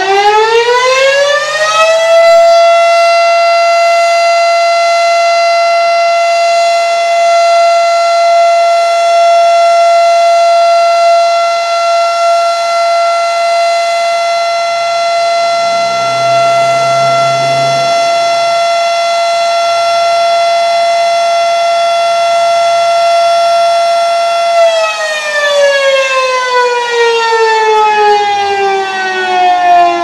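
Fedelcode Model 5 electromechanical warning siren sounding the steady alert signal. It finishes winding up in pitch over the first couple of seconds, then holds one loud steady tone with strong overtones. About 25 seconds in it begins winding down in a long falling pitch.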